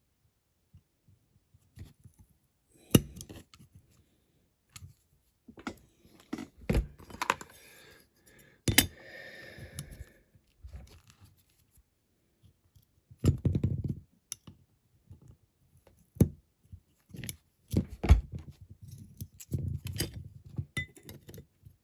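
Small cutters snipping as a part is trimmed down bit by bit, with sharp clicks and knocks from handling and test-fitting small parts on a workbench.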